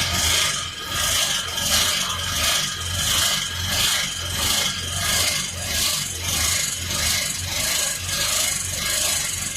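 Starter cranking the Dodge 5.9 V8 slowly, a rhythmic rasping grind about twice a second over a steady whine: the engine is binding from the damaged rod bearing and turns over only heavily.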